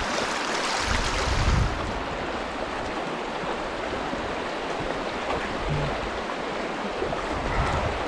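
Steady rush of creek water flowing over a riffle. It is louder and brighter for the first second and a half, with a few low bumps.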